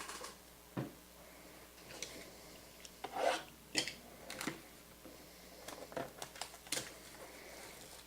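Hands handling and opening a sealed box of trading cards: scattered clicks, taps and rubbing, with a brief louder rustle of cardboard and packaging about three seconds in.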